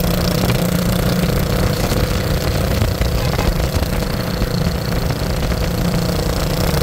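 A motor vehicle's engine running steadily under a constant low rumble.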